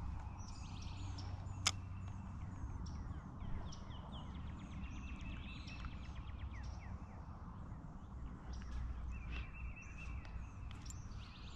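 Several birds calling and singing: short falling chirps and rapid trills of repeated notes, over a steady low rumble. A single sharp click sounds a little under two seconds in.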